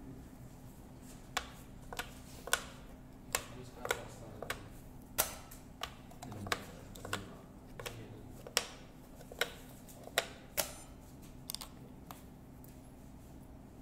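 Othello discs clicking against one another and the plastic board as they are flipped and set down by hand: about seventeen sharp, uneven clicks, roughly one or two a second, from about a second and a half in to about twelve seconds.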